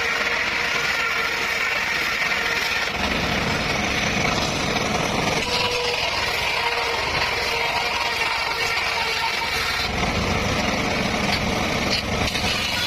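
Circular saw running steadily while sawing petung bamboo. Its low sound grows heavier twice, about 3 seconds in and again about 10 seconds in.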